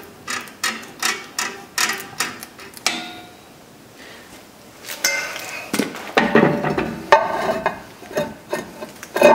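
Drum brake star-wheel adjuster being turned out, clicking about three times a second. Then a new brake drum is slid over the shoes, metal scraping and ringing, going on with a little drag: the shoes are adjusted close to the drum.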